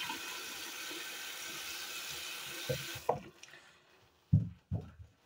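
Bathroom sink tap running while water is splashed on the face; the tap shuts off suddenly about three seconds in. A few low thuds follow.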